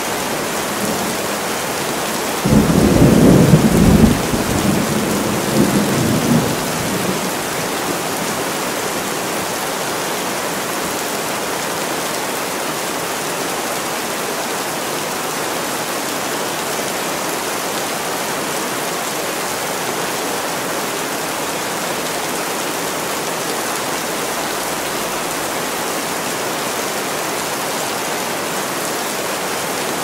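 Steady rain with a clap of thunder about two and a half seconds in, rumbling low and fading away over the next few seconds.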